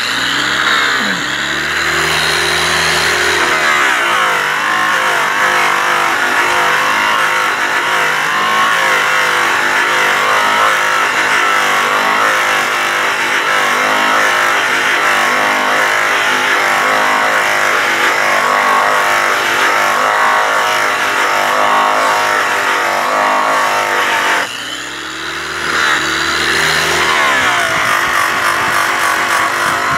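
Makita angle polisher with a yellow airway buffing wheel starting up, rising in pitch to full speed and then running steadily as the buff is worked back and forth over a polished aluminum truck wheel in the final clean-up pass. About 25 seconds in the motor slows briefly and spins back up to speed.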